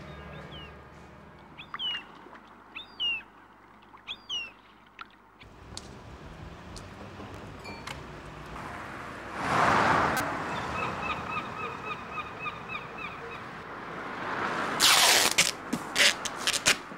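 Small birds chirping in short, quick calls during the first few seconds. Then a swell of outdoor noise, the loudest sound, followed by a fast run of high pips at about five a second, and a burst of clattering near the end.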